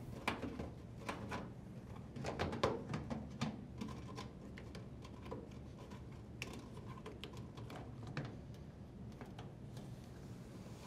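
Rubber door boot seal of an LG front-load washer being pressed and tucked by hand onto the front panel's lip: faint scattered clicks, taps and rubbing, busiest a couple of seconds in.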